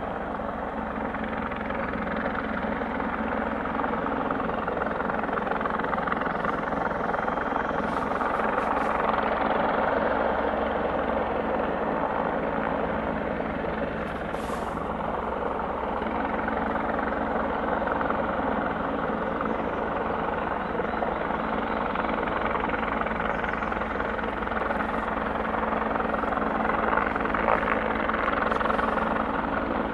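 Bell 412 helicopter's rotors and turbine engines, a steady drone with a low hum that gently swells and eases in loudness.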